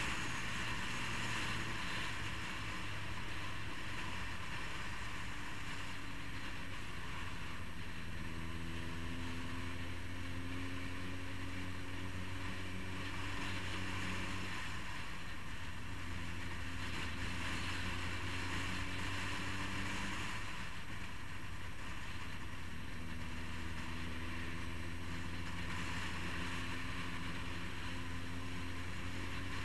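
Motorcycle engine running at a steady cruise, its low hum rising and falling gently in pitch with small throttle changes, under wind rushing over the microphone that swells and fades.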